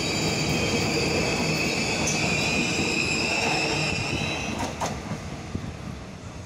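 Electric train running through the station, a steady rumble with a high-pitched squeal over it that fades about four and a half seconds in, followed by a brief click.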